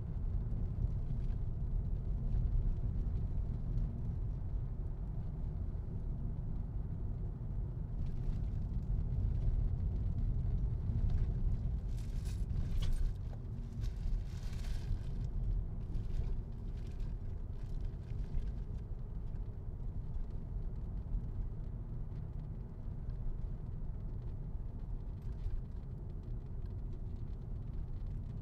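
Car driving along a road, heard from inside: a steady low rumble of engine and tyres, with a few brief crackles about halfway through.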